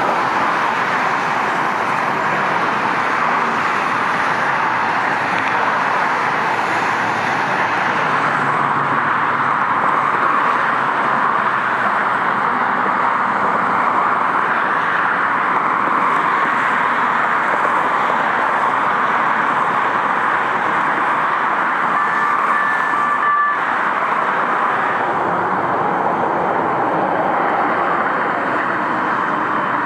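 Steady noise of heavy freeway traffic, constant in level throughout.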